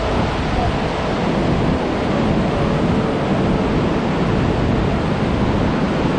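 Whitewater rapids of the Jinsha River surging around a large boulder: a loud, steady rush of water.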